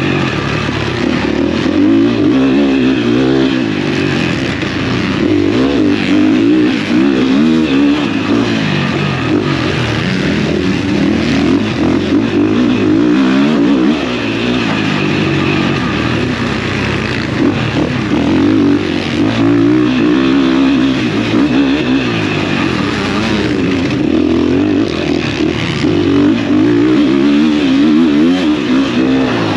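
Dirt bike engine revving hard, its pitch rising and falling over and over as it is ridden through the gears.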